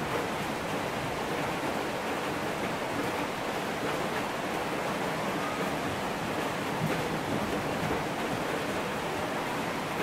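Steady rain falling, an even hiss.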